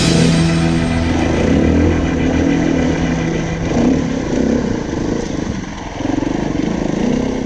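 KTM dirt bike engine running at trail speed, its pitch stepping up and down as the throttle is opened and closed.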